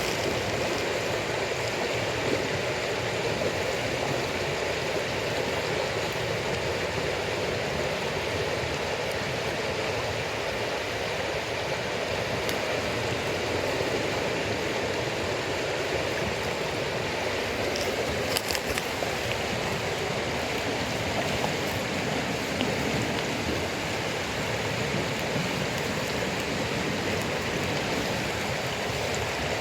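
Steady rushing noise around a campfire of cold, damp firewood, with a few sharp crackling pops from the burning wood, one louder pop a little past the middle.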